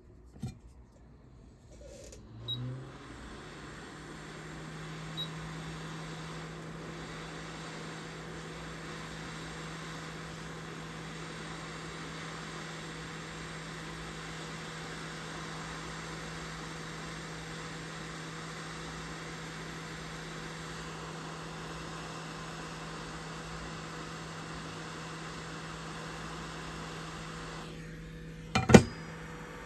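A small electric blower switched on, its motor hum rising and settling to a steady pitch under an even rush of air. Near the end the airflow cuts out, followed by a sharp clack.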